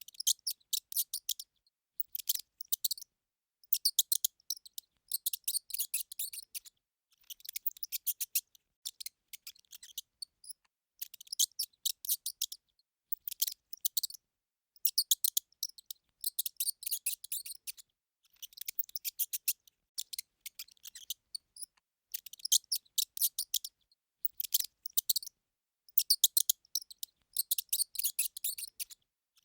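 Mouse squeaking: rapid strings of short, high-pitched squeaks in runs of a second or two, with short pauses between.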